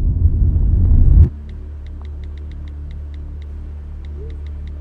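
Low rumble inside a car's cabin, growing louder and then cutting off abruptly about a second in. A quieter steady hum follows, with an even run of light ticks, about five a second.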